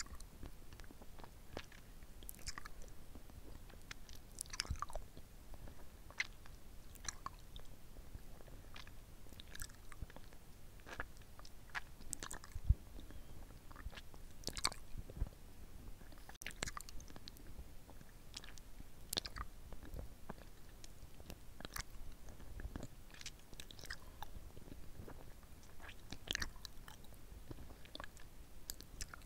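Wet, close-miked mouth sounds of a red lollipop being licked and sucked: irregular sticky smacks and clicks of lips and tongue on the candy, a few a second, with one sharper click a little before halfway.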